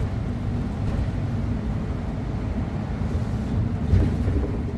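Inside a moving city bus: steady low engine and road rumble, with a single louder bump about four seconds in.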